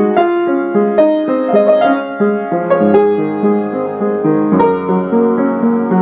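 Background piano music, a melody of single struck notes over lower held notes.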